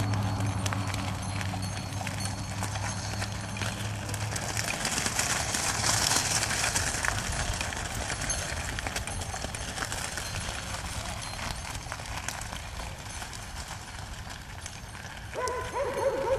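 A miniature horse in hoof boots pulling a light cart on a gravel road: steady hoofbeats and crunching gravel under the hooves and cart wheels. A low steady hum fades out about a quarter of the way in, and short pitched calls come in near the end.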